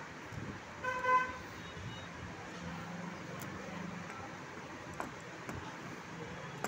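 A vehicle horn sounds briefly, once, about a second in. Later, two faint clicks come from the steel lock parts being handled.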